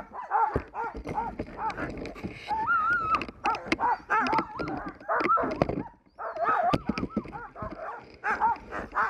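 Sled dogs yipping and whining in quick, high-pitched cries, with one longer drawn-out whine a few seconds in and a short lull about six seconds in.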